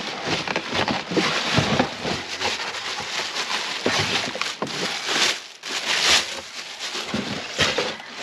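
Plastic bag wrapping crinkling and rustling, with cardboard and foam packing scraping and knocking, as a chainsaw is lifted out of its shipping box and unwrapped. The noise comes in irregular surges with many small sharp crackles.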